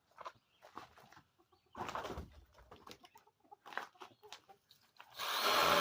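A few handling clicks and knocks, then near the end a one-handed mini chainsaw starts up and runs steadily.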